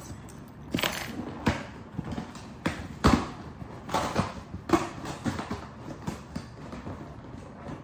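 A shipping package being handled and worked open: irregular knocks, taps and scrapes, the loudest knock about three seconds in.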